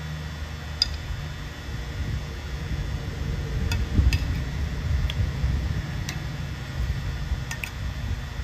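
A handful of light metallic clicks and clinks, the sharpest about four seconds in, as a wrench works on a milling machine's head bolts to loosen the head for re-tramming, over a steady low hum.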